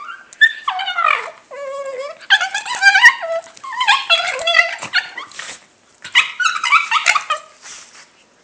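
Dog making weird vocal noises: loud pitched calls that glide up and down, in four or five bouts with short pauses, including one steadier held call about two seconds in. The calls stop about a second before the end.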